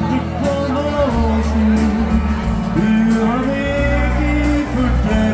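Live Norwegian dance band (dansband) playing an upbeat dance tune through a PA, with a melodic lead line over a steady drum beat.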